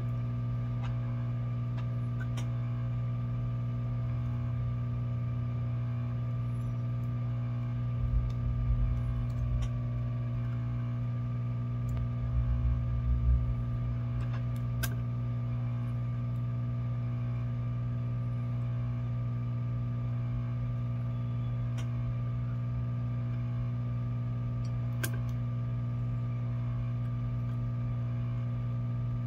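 Hot-air rework station running with a steady hum from its blower while hot air is played over a surface-mount chip to melt its solder. A few faint clicks and two brief low bumps about a third of the way in.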